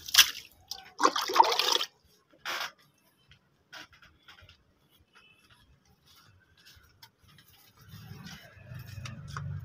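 Water poured and splashing into a bowl in three short bursts, then quiet with a few faint scuffs. A low steady hum comes in near the end.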